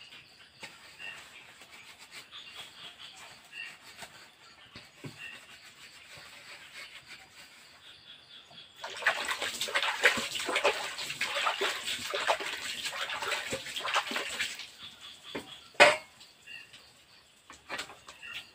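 Dishes being washed by hand in a plastic bucket of water: quiet small dabbling at first, then about nine seconds in, several seconds of water sloshing and splashing with rubbing of plates. A single sharp knock near the end is the loudest sound.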